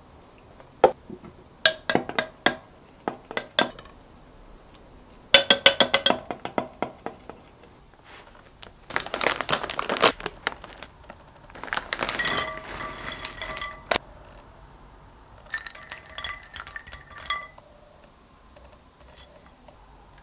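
Sharp clinks of a metal spoon against a glass mug. These are followed by a rustling snack bag and runs of clattering as crunchy stick snacks and nuts tumble into a ceramic bowl, which rings briefly with each run.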